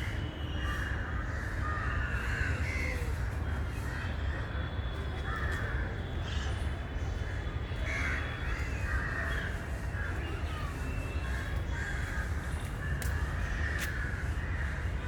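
Birds calling over and over with harsh, caw-like calls, over a steady low rumble.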